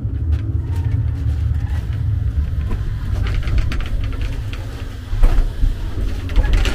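A loud, uneven low rumble, with a few clicks in the middle and a louder surge about five seconds in.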